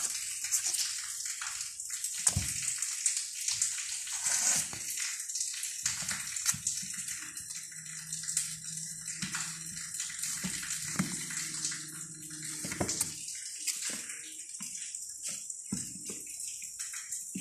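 Kittens scrabbling on a cardboard box and cloth: scattered scratches, scrapes and soft knocks over a steady hiss.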